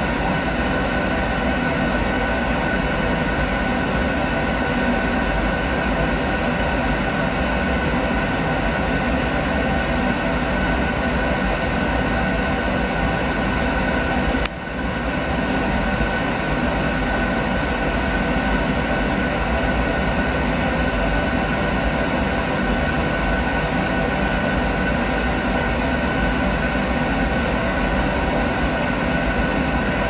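Riello 40 power gas burner running on a steam boiler: a steady mechanical blower noise with several steady tones, dipping briefly about halfway through.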